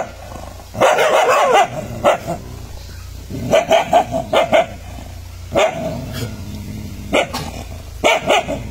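Street dogs barking at their own reflections in a mirror, in repeated bursts of quick, sharp barks with pauses between.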